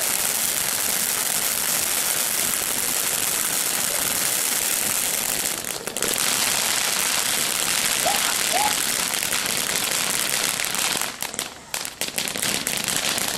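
Ground fireworks fountain spraying sparks, a steady dense hissing crackle. It drops out briefly about six seconds in and again for about a second near the end.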